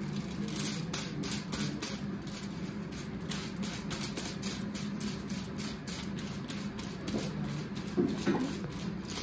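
Tint brush painting highlight colour onto a hair strand laid on aluminium foil: a quick, uneven series of short swishing strokes, a few a second, over a steady low hum, with a brief louder sound near the end.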